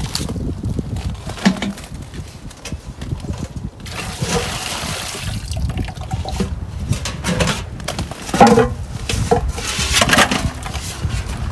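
Maple sap poured from a galvanized metal sap bucket into a plastic 5-gallon pail, a steady splashing pour. About eight seconds in come several sharp clanks as the metal bucket and its lid are handled.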